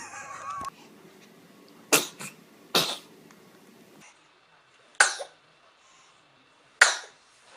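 A run of short, sharp sneezes: a quick pair about two seconds in, another just under a second later, then single sneezes about two seconds apart.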